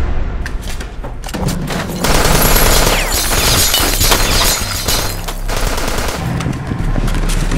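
Gunfire in a film shootout: many shots fired in quick succession, some overlapping, with a steady low bass beneath.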